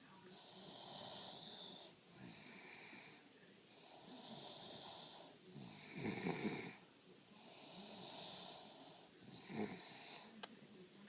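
A young girl snoring in her sleep: about three slow breath cycles, the breaths carrying a high whistling tone, with the loudest rough snore about six seconds in.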